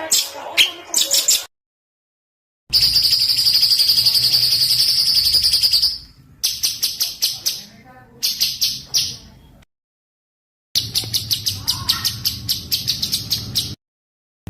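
Spliced recordings of small songbirds singing. There is a long, high, buzzing trill, then a bout of rapid chattering, then a fast, even run of sharp repeated notes. The segments are separated by abrupt cuts to dead silence.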